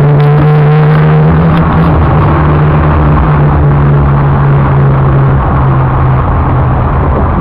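A motor vehicle's engine running close by, a loud steady drone; one of its tones drops away about five seconds in.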